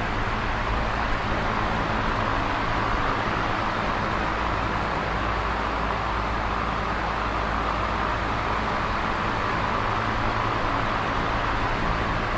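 Electric fan running steadily: an even whooshing hiss of moving air, strongest in the middle range, with a low motor hum beneath.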